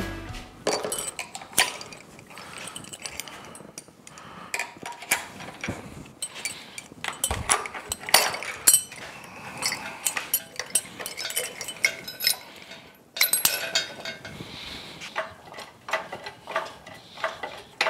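Steel lifting chains of a chain hoist clinking and rattling as they are handled and hooked onto an outboard powerhead's lifting harness, with irregular sharp metal clinks and a few louder clanks.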